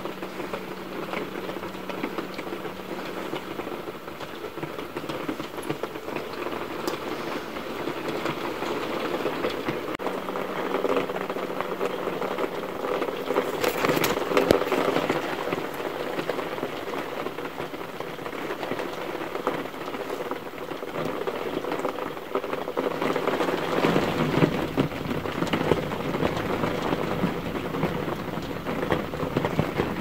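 Heavy rain falling steadily on a window pane and a garden, with a louder patch about halfway through.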